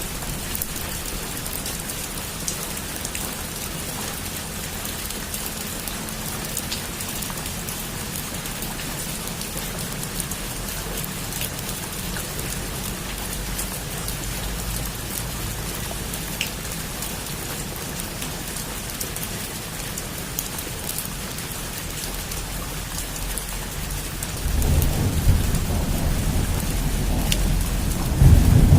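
Heavy rain falling steadily on a roof: an even hiss with scattered drop taps. Near the end a low rumble of thunder comes in and grows louder.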